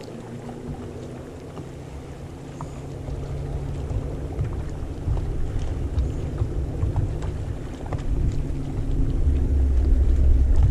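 A boat motor running with a steady low hum that grows steadily louder, with a deep rumble building near the end.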